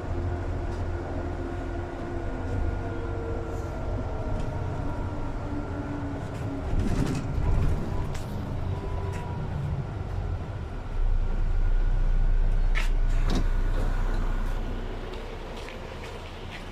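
City bus heard from inside the cabin while driving: steady engine and road rumble with a faint whine and a few rattles and clicks. The rumble swells about eleven seconds in, then eases off near the end.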